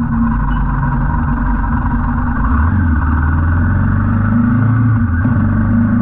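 Royal Enfield Himalayan 450's single-cylinder engine running steadily while riding, its note shifting a couple of times, with road and wind noise.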